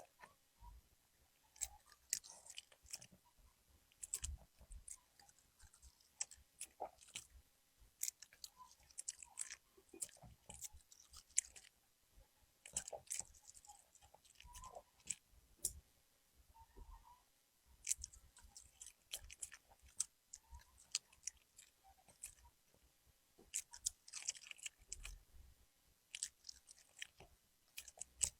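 A Pomeranian chewing and crunching its food, in irregular bursts of short, sharp bites with brief pauses between them.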